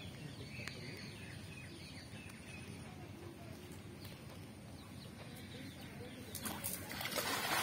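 Hand-thrown cast net splashing down onto pond water about six and a half seconds in, a brief rushing splash lasting about a second. Before it, faint outdoor background with bird chirps.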